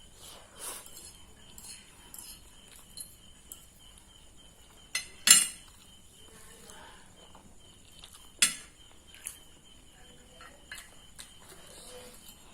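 Spoon or fork clinking against a plate while eating noodles: scattered light taps, with a few sharp clinks about five seconds in and again near eight seconds.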